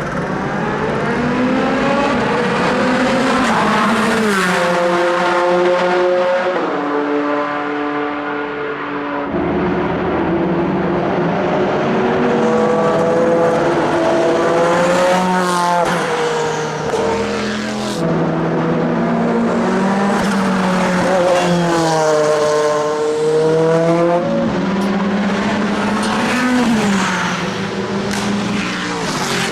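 Audi R8 LMP's twin-turbo V8 racing engine at speed. Its revs rise through the gears, dropping in steps at each upshift, then fall away and climb again several times over.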